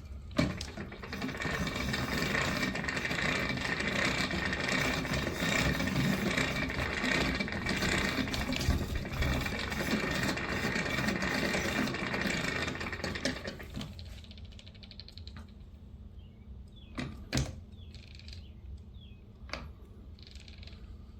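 Spring-driven kinetic wall sculpture's mechanism of wheels and sprockets running with a dense, steady mechanical rattle that dies down after about 13 seconds, followed by a few sharp clicks.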